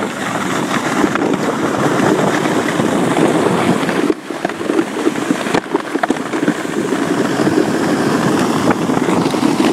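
Steady crunching and rattling of a dog-pulled mushing rig travelling fast over a snow-covered road, mixed with wind rushing over the microphone.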